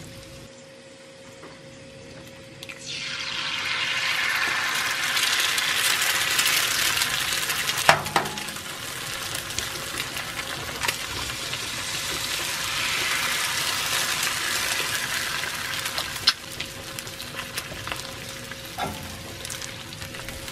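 Eggs sizzling on the gas-heated flat-top griddle of an Expert Grill 3-in-1: the sizzle swells up about three seconds in as the eggs go onto the hot oiled surface, eases, then swells again before tapering off, with a sharp click about eight seconds in.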